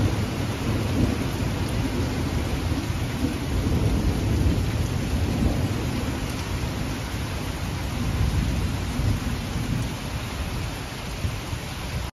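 Heavy thunderstorm: steady rain with a continuous low rumble of thunder underneath.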